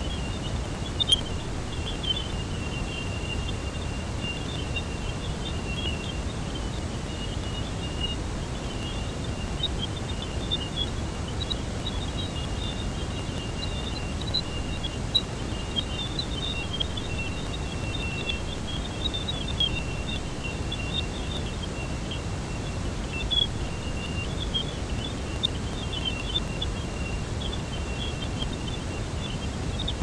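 Cassini spacecraft recording of Jupiter's radio and plasma-wave emissions, converted to sound. It is a steady, noisy hiss, strongest in the low end, with a thin high tone held steady and scattered high chirps and occasional clicks on top.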